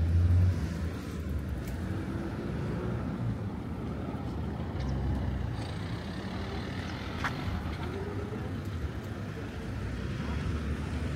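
Road traffic: cars driving past, a steady low rumble that is loudest at the very start.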